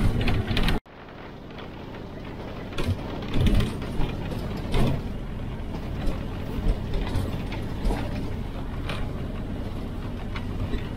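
Cabin noise inside a moving Scania-engined intercity bus: steady engine and road noise with frequent rattles and clunks from the bus body and fittings as it rides over the road. The sound cuts out about a second in and fades back up.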